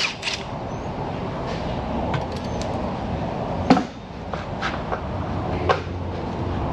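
Metal parts clinking and knocking as a bracket and its hardware are worked onto a loose turbocharger by hand, over a steady workshop background hum. One louder clank comes a little past the middle, with a few lighter clicks around it.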